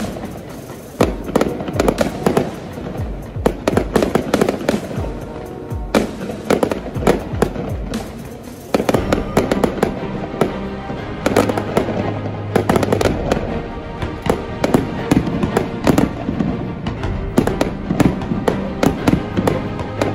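Fireworks display: aerial shells bursting in rapid, repeated bangs and crackles, getting denser and louder about nine seconds in, with music laid over them.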